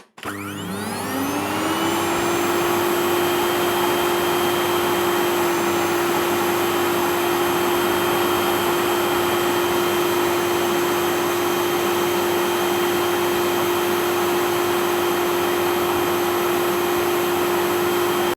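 Vacuum cleaner switched on: its motor spins up with a rising whine over the first two seconds, then runs steadily with a high whine over a rushing of air, and cuts off at the end.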